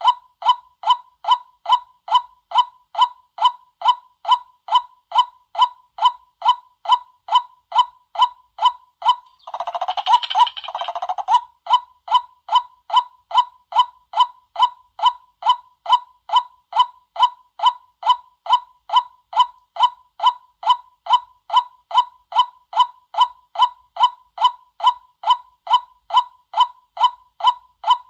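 White-breasted waterhen calling a short, monotonous note over and over, about twice a second, with a harsher, noisier outburst lasting about two seconds near the middle.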